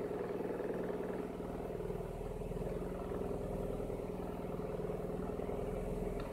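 Nissan Primera P12's SR20VE 2.0-litre four-cylinder engine running cold at idle, with an abnormal engine noise when cold. The running is steady and evenly pulsing, with a mid-pitched hum that weakens about a second in.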